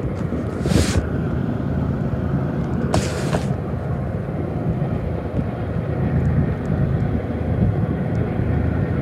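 BNSF intermodal freight train rolling past with a steady low rumble, with two short hisses, about a second in and again about three seconds in.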